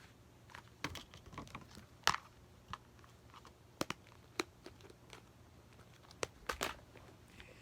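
Clear slime being squished and stretched by hand, giving irregular sticky clicks and pops, the loudest about two seconds in and a quick cluster near the end.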